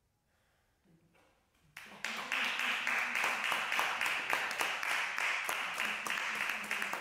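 Near silence, then about two seconds in a small audience breaks into steady applause, with a few voices over it.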